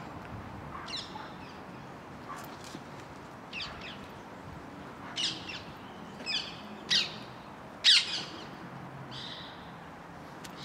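Birds calling: a string of short, sharp calls at irregular intervals, the loudest about eight seconds in, over steady outdoor background noise.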